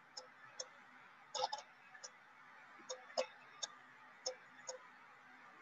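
Faint, irregular clicking, about a dozen short clicks, from a pen tool drawing dots on a digital whiteboard; three come in quick succession about one and a half seconds in.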